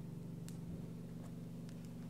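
Home oxygen concentrator running with a steady low hum. A few faint clicks sit on top of it.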